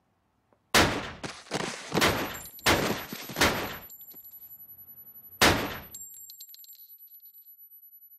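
Gunshots: a rapid series of about five shots within three seconds, then one more about two seconds later. A thin, high, steady ringing tone carries on after them.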